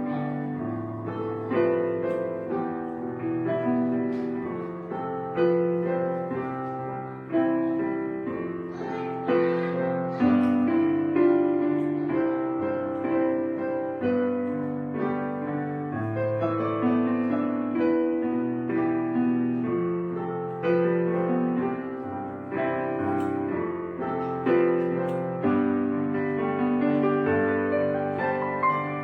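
Background piano music: chords struck one after another, each fading away before the next, with a new note or chord every second or two.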